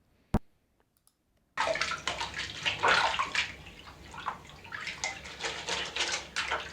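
Recorded sound effect of hands being washed under a running tap: splashing, uneven water noise that starts about one and a half seconds in, after a single sharp click.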